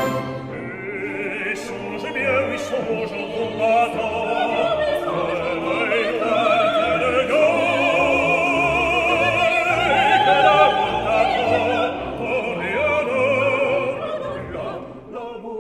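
Operatic classical music with orchestra, a melody line wavering in vibrato over sustained accompaniment, dipping in level near the end.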